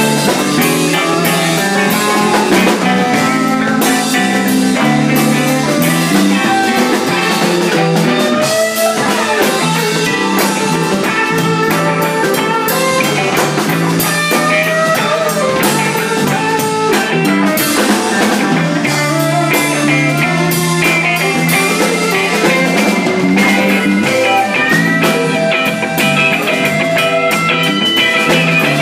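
Live blues band playing an instrumental passage: a semi-hollow electric guitar plays lead lines over electric bass and a drum kit.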